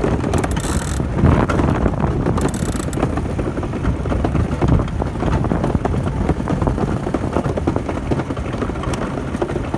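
DN iceboat's steel runners rumbling steadily over the ice as the boat sails, with some wind on the microphone.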